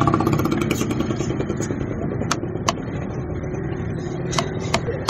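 Large knife chopping fish fillet into chunks on a wooden log block: a few sharp chops in two close pairs, each pair about half a second apart. Underneath runs a steady low rumble like an idling motorcycle engine.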